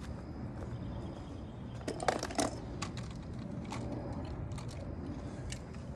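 Scattered small hard clicks and clatter of die-cast toy cars and plastic track being handled, with a cluster of louder clicks about two seconds in, over a steady low rumble of wind on the microphone.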